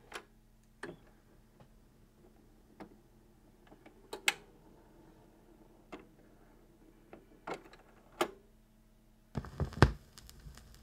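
Record turntable with a 45 rpm single spinning: a low steady motor hum and scattered sharp clicks. Near the end a few thumps come as the stylus settles onto the record, followed by steady surface hiss from the lead-in groove.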